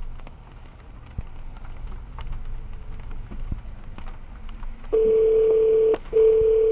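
A horn sounding two long, steady blasts of about a second each, with a short gap between them, over a low rumble.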